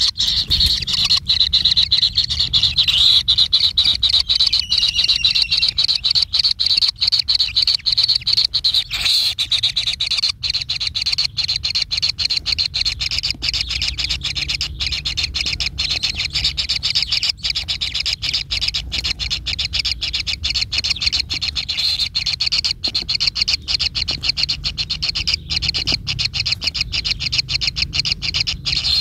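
An animal's rapid pulsing rasp: a steady run of many short pulses a second, with a low hum underneath.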